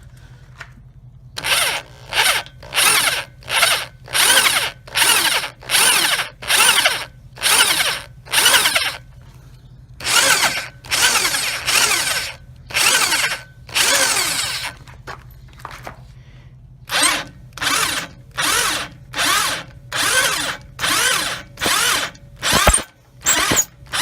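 Power drill turning a step bit into a steel foot peg mount, run in short trigger-pulsed bursts a little over once a second, with one longer run near the middle and a brief pause after it. The bit is cutting out the stripped bolt hole to take a Time-Sert thread insert.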